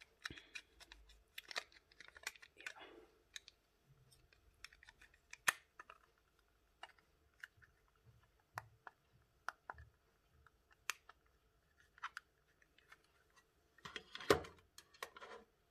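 Faint handling noise of a small plastic battery-powered puck light turned over in the hands: scattered light clicks and taps, with short rustling near the start and again near the end.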